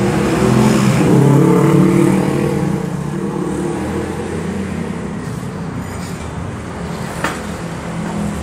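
A motorbike engine running, rising and growing louder in the first two seconds or so, then settling to a steady run. A single sharp click about 7 seconds in.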